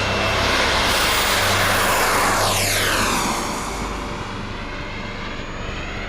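Turbine of a 1/5-scale BVM L-39 radio-control model jet making a pass. A loud jet rush builds, then sweeps down in pitch as the jet goes by about three seconds in, and eases to a quieter steady rumble.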